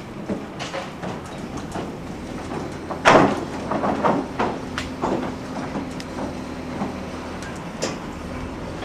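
Knocks and thuds of timber and scaffold boards as workers take apart a king-post timber roof truss. There is one loud bang about three seconds in, then a run of lighter knocks, over a steady low hum.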